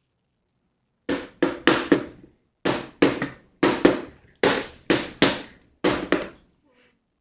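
A baby banging a plastic toy against her walker's tray: about a dozen sharp knocks, often in pairs and irregularly spaced, each ringing briefly, starting about a second in.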